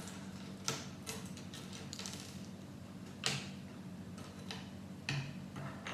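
Small plastic Lego pieces clicking and tapping as they are handled and picked out: a handful of separate light clicks, the loudest about three seconds in.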